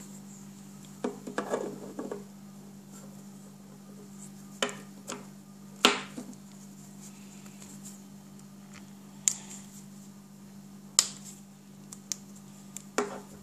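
Scattered sharp clicks and short handling rustles, about seven or eight in all, as a replacement strap is pushed and snapped into a Samsung Gear S smartwatch. A steady low hum runs underneath.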